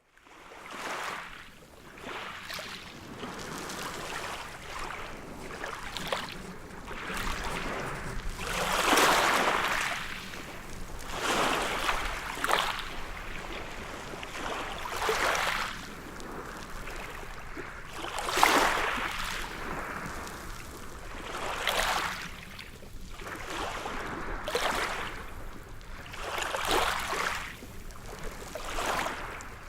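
Ocean waves breaking and washing up a beach, surging and falling back every two to three seconds. The biggest surges come about nine and eighteen seconds in.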